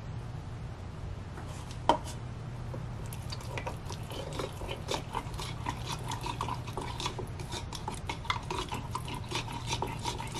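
Small silicone spatula stirring and mashing a thick, wet cheese-ball paste in a mini food processor bowl, with many small clicks and scrapes against the bowl's side. A single sharper knock about two seconds in.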